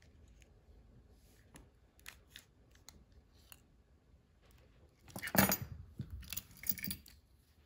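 Small clicks of a Hyundai smart key fob and its metal key ring and key blade being handled, then a louder jingle and clatter of keys set down on the table about five seconds in, with a few more clinks after.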